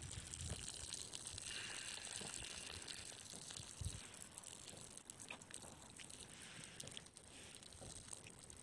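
Faint water lapping at the edge of a lake, with scattered small clicks.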